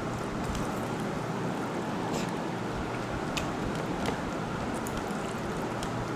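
Steady background noise with a few light, sharp clicks of people eating a meal from plates, about two seconds in and again twice a little later.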